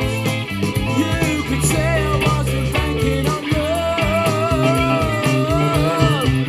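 Rock music with guitar, bass and singing, played through Bang & Olufsen Beolab 4000 active loudspeakers. Past the middle, a long wavering note is held for a couple of seconds.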